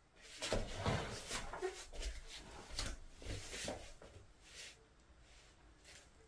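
A run of scraping and knocking handling sounds, loudest and most frequent in the first four seconds, then fainter.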